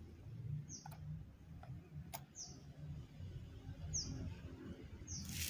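A small bird calling, one short high falling chirp repeated about every second or so over a steady low rumble. There are a few faint clicks and a brief rustle near the end.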